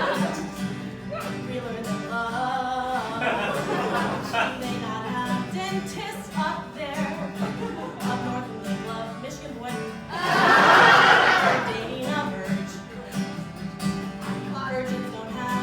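A woman singing to acoustic guitar accompaniment, with one louder stretch about ten seconds in.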